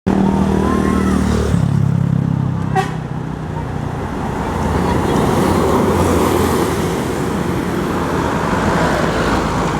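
Large tour bus engine running with a steady low hum for the first second and a half, then road traffic noise that swells and fades as vehicles pass, with a brief toot about three seconds in.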